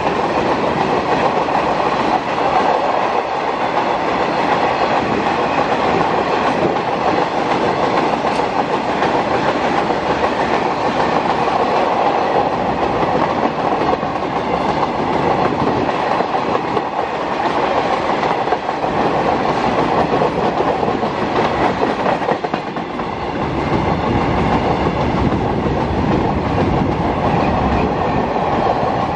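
Freight train wagons rolling past close by: a continuous loud rumble and rattle of steel wheels on the rails, with a rhythmic clatter running through it. The low rumble grows heavier near the end.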